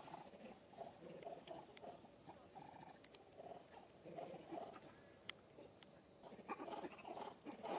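Faint, short animal calls scattered through a steady high insect drone, with rustling, scratching noises growing near the end.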